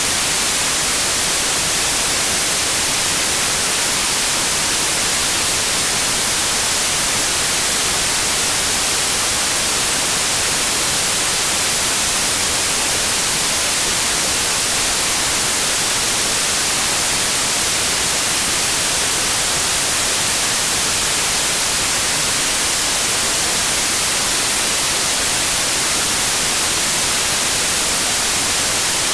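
Steady white noise: an even, unchanging hiss across all frequencies, brightest in the highs.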